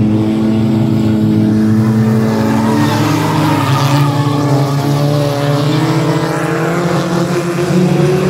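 A pack of stock race cars at full throttle, several engines running together, passing close by about four seconds in with their pitch shifting. The engine pitch climbs again near the end as the cars accelerate away out of the turn.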